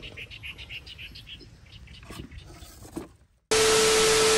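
Loud TV-static hiss with a steady humming tone under it, cutting in abruptly about three and a half seconds in: a signal-loss glitch transition effect. Before it, faint outdoor background with a quick run of short high calls.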